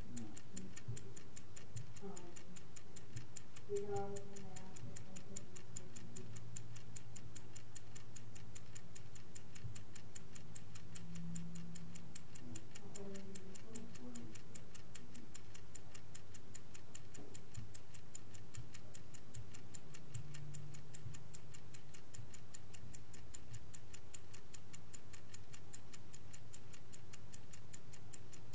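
Vintage Swiss-made Angelus clock ticking at an even, steady rate, over a faint low hum.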